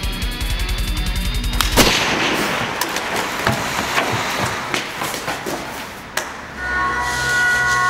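Dubbed action-film gunfire effects: fast pulsing music breaks off about two seconds in with a loud hit, followed by a rattle of scattered gunshots and impacts. A steady chord of tones comes in near the end.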